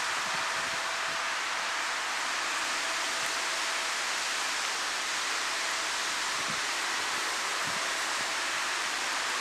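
Steady hiss of rain falling on the tracks and platform, even throughout, with a faint steady tone that fades out about three seconds in.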